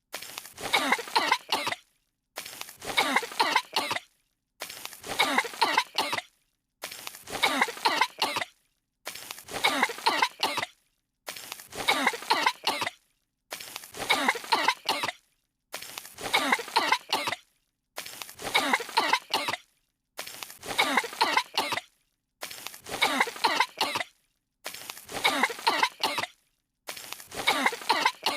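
Two cartoon characters coughing from dust that has fallen on them, several coughs in quick succession. The same short coughing fit repeats about every two seconds, each time cut off by a brief dead silence.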